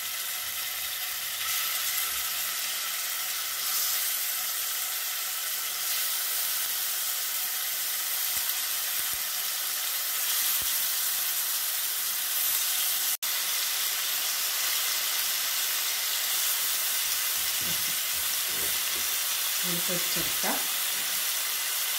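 Chili-marinated chicken pieces sizzling in hot sunflower oil in a frying pan as they are laid in one by one, a steady hiss. The hiss breaks off for a split second about halfway through.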